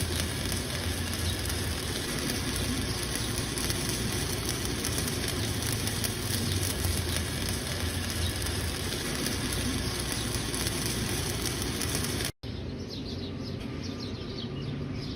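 Electric arc welding: a steady crackling hiss with a low hum underneath. It cuts off suddenly about twelve seconds in, and a quieter stretch with faint high chirps follows.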